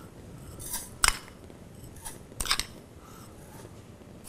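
Granulated sugar poured from a small bowl into a small metal saucepan: a few short, dry, hissing rustles, with a sharp tap about a second in.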